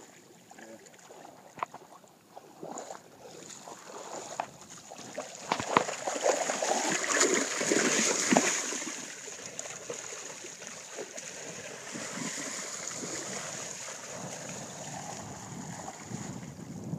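Shallow water splashing and sloshing, quiet at first, loudest from about six to nine seconds in, then settling to a steadier wash.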